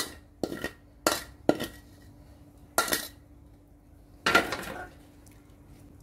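A utensil clinking and scraping against a plate, about six short strokes, with a longer scrape about four seconds in, as food is scooped up from the plate.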